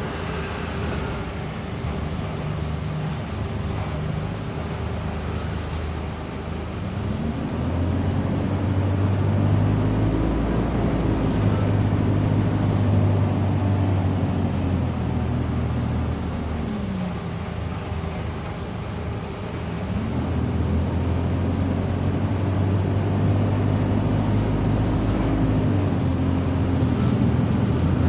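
Alexander Dennis Enviro200 bus's diesel engine heard from inside the saloon, pulling hard twice: each time the engine note rises, holds and then drops back as the gearbox changes up. A steady whine from the cooling fan runs under it throughout.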